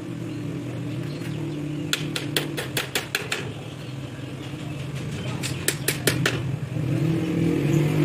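Small hammer tapping nails into the joints of a thin wooden frame: a quick run of about eight taps, a pause, then another run of about six, over a steady low hum.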